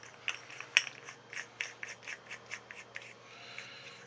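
A leg being unscrewed by hand from the base of a Haier HLP23E portable washing machine: a run of quick clicks and scrapes from the threads, about four a second, that dies away about three seconds in.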